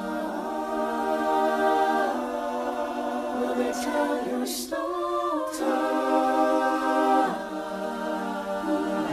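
Choir singing slow, held chords, the chord changing every two to three seconds, with a few soft sibilant word sounds.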